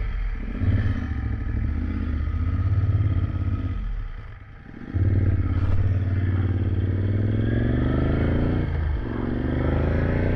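Motorcycle engine ticking over, dropping away briefly about four seconds in, then pulling away and accelerating with its pitch rising, with a gear change near the end and the climb starting again.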